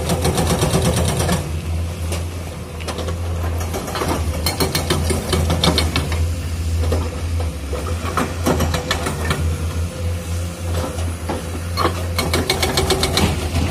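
Hydraulic breaker on a Komatsu PC210-10MO excavator hammering rock in rapid runs of blows over the excavator's steady diesel engine drone. The hammering stops about a second and a half in, then starts again after a few seconds in shorter, irregular runs, running fast and dense again near the end.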